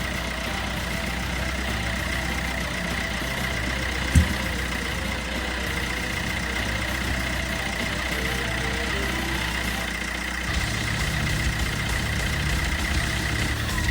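Peugeot Bipper engine idling steadily, with one sharp click about four seconds in and a change in the low engine note about ten and a half seconds in.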